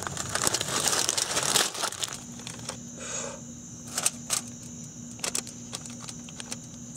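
Aluminium foil crinkling under hands cutting a breaded, fried catfish fillet with a knife, densest in the first two seconds, then lighter crinkles and small clicks as the pieces are moved onto tortillas.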